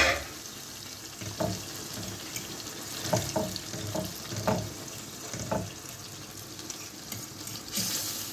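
Sheep's brain frying in oil and spiced tomato sauce in a small steel pan, a steady sizzle, with a utensil stirring and breaking it up in a handful of soft, separate strokes.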